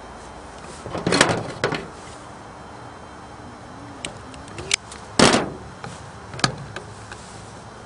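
Handling noises of wiring work: stranded wires being twisted together and a hand tool being picked up and used, heard as a few short scraping rustles and clicks, the loudest about five seconds in.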